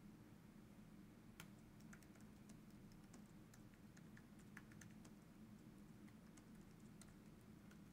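Faint typing on a computer keyboard: irregular key clicks over a low steady hum.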